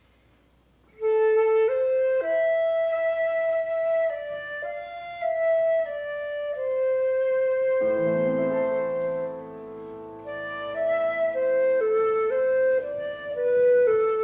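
A flute begins playing a slow melody about a second in. A piano joins underneath with lower accompanying notes about eight seconds in.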